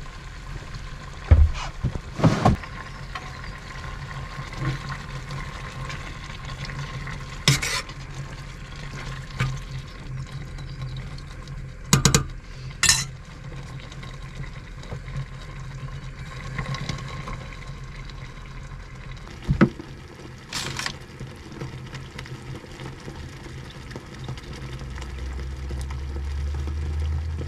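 Chili being stirred in a lightweight aluminium camping pot on a gas hob, with a handful of sharp metal knocks and clinks against the pot over the steady sound of the burners. A low rumble builds near the end.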